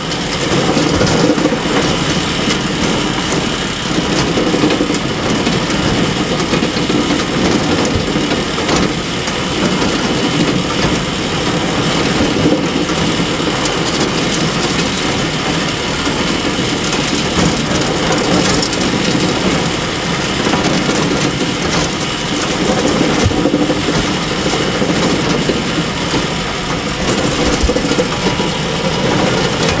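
Hay bale elevator running steadily, a continuous mechanical noise from the conveyor and its drive.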